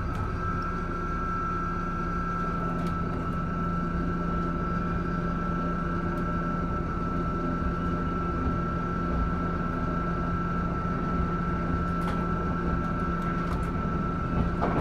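Inside an electric train car on the Oigawa Railway main line: a steady low hum with a constant high-pitched whine over an even rumble.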